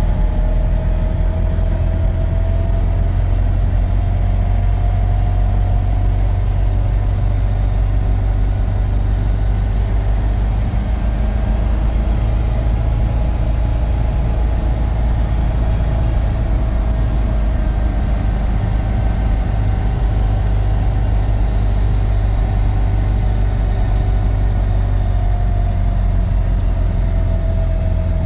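Vehicle being driven, heard from inside the cabin: a steady low rumble of engine and road noise, with an engine tone that slowly rises and falls as the speed changes.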